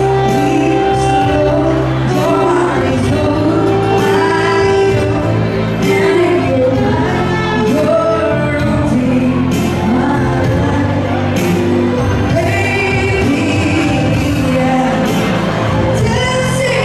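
A live band playing a pop song, with a singer carrying the melody over steady bass notes and cymbal strokes.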